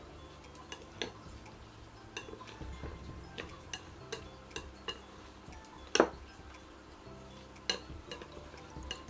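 Wooden chopsticks stirring noodles in a ceramic bowl: scattered light clicks and taps against the bowl, with one sharper knock about six seconds in.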